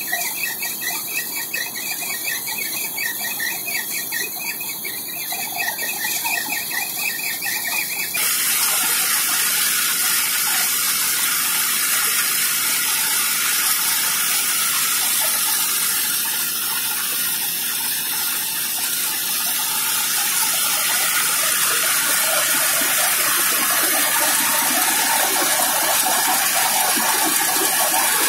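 Tractor-driven bajra thresher running: for the first several seconds a rapidly pulsing high squeal rides over the machine noise, then about eight seconds in it gives way to a loud, steady rushing noise from the threshing drum and fan.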